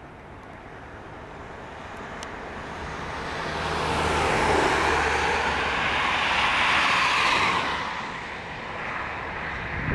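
A Boeing 777 freighter's two GE90 turbofan engines at takeoff thrust as the jet climbs out. The engine noise builds over the first few seconds, is loudest for about three seconds, then its hiss cuts off sharply, leaving a quieter, lower sound.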